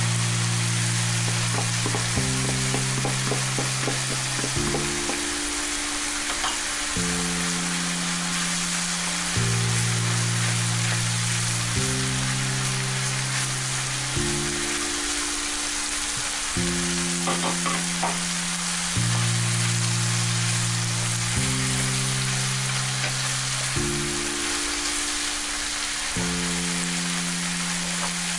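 Minced beef, onion and bacon sizzling in a frying pan as chopped tomatoes are added and stirred in with a wooden spoon, with a few spoon scrapes. Under it runs background music of slow held chords that change about every two seconds.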